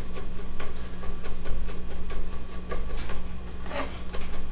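Chef's knife chopping garlic cloves on a wooden cutting board: short taps of the blade on the board, about three a second.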